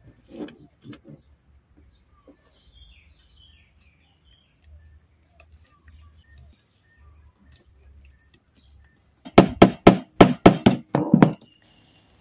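Knocks from handling a speargun while rubber bands are pressed into its muzzle: a few soft knocks at the start, then a quick run of about seven loud, sharp knocks about nine seconds in. Faint bird chirps sound in between.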